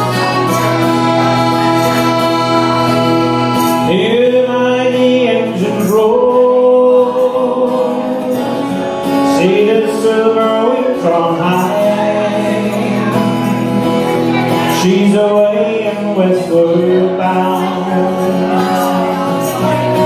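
Live folk song on acoustic guitar and button accordion. The instruments play alone at first, and a man starts singing about four seconds in.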